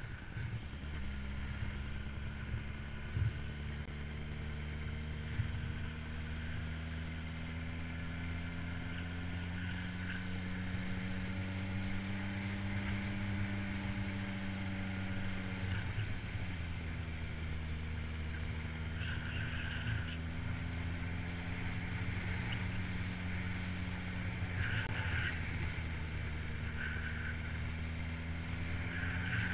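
Motor vehicle engine running steadily under a low rumble, its pitch slowly rising and falling with speed, dropping sharply about halfway through and climbing again.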